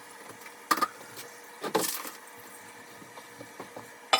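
Parts and tools being handled during toilet reassembly: a sharp knock about a second in, a short scraping rattle near two seconds in, and another sharp knock at the end.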